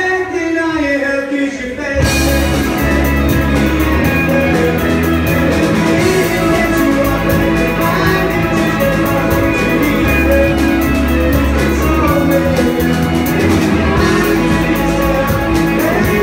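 Live rock band playing loudly: electric guitars, bass guitar and a drum kit with cymbals, with vocals. After a sparser opening of about two seconds, the drums and bass come in fully and the band plays on steadily.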